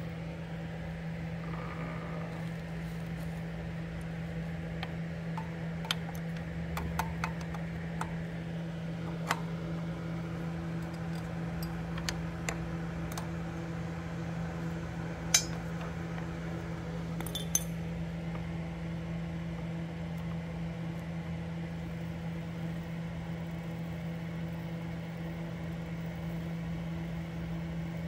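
Scattered light metallic clicks and clinks of a wrench on the spoke nipples of a dirt bike wheel as the spokes are tightened to true the wheel, mostly in the middle stretch, over a steady low hum.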